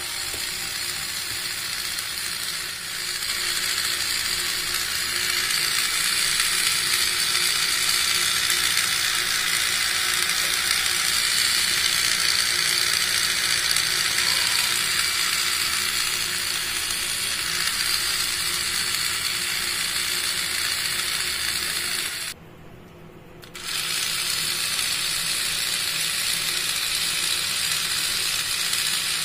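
Small yellow plastic DC gear motor running steadily with a continuous whirring hiss. The hiss gets a little louder about three seconds in and cuts out briefly about 22 seconds in.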